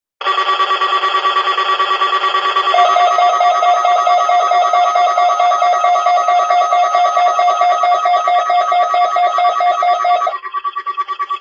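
Electronic tones that pulse rapidly, about four to five times a second. A second, lower note joins about three seconds in and drops out near the end.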